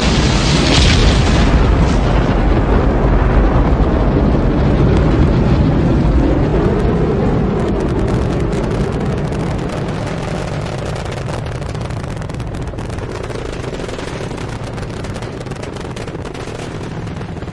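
Rocket launch: the loud, dense rumble of rocket engines at liftoff and climb, slowly fading from about six seconds in, with a rapid crackle over it in the second half.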